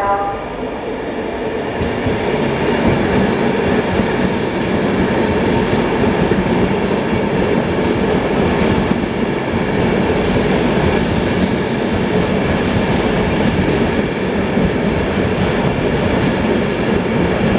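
InterCity 225 electric express, Mk4 coaches, passing through a station platform at speed: a steady rushing rumble of wheels on rail that builds over the first couple of seconds and then holds.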